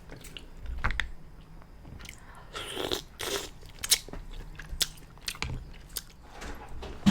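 Close-miked mouth sounds of someone eating mussels and sauce-soaked garlic toast: biting and chewing with a scatter of short wet clicks and crunches. A sharp click right at the end is the loudest sound.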